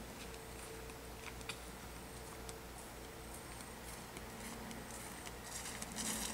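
Quiet outdoor background with scattered faint ticks. Footsteps swish through grass and grow louder near the end as a person walks up close.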